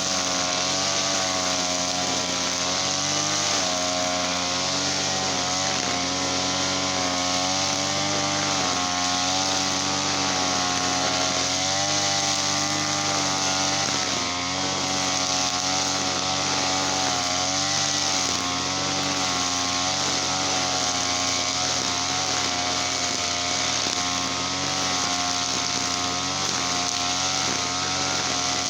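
Small petrol engine running steadily at a fairly constant speed, its pitch wavering slightly up and down.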